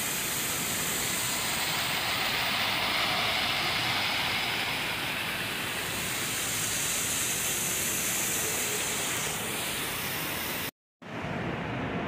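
Steady rushing and splashing of a small waterfall cascading over rocks. About 11 s in it cuts out for an instant and comes back as a duller, fainter hiss.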